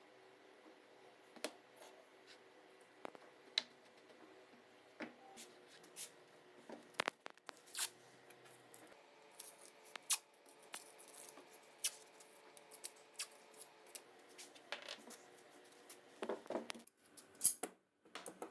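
Scattered light clicks and taps, irregular and about one or two a second, with a quick cluster near the end, over a faint steady hum.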